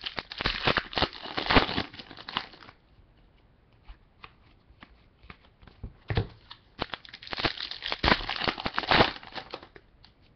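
A foil trading-card pack being torn open and its wrapper crinkled and crackled. This comes in two bouts of rustling: one at the start, and another about six seconds in after a quiet pause.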